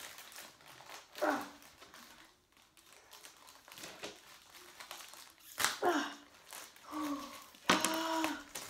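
Paper and plastic wrapping crinkling as it is handled and pulled apart. A few short wordless vocal sounds break in, the longest and loudest near the end.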